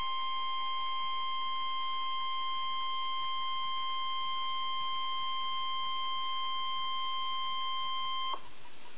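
NOAA Weather Radio warning alarm tone: one long, steady tone that cuts off sharply about eight seconds in, leaving the radio's steady hiss.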